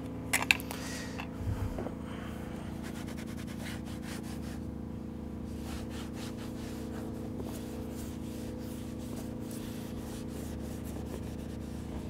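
A cloth rubbing and wiping across a plastic waterfall-filter faceplate and pond liner in quick repeated strokes, wiping the surface clean before sealant goes on. A few sharp knocks come about half a second in, and a steady low hum runs underneath.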